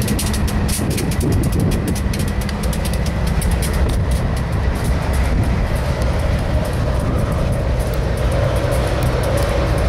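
Freight train of ethanol tank cars rolling past: a steady, loud rumble of steel wheels on rail with a rapid run of clicks.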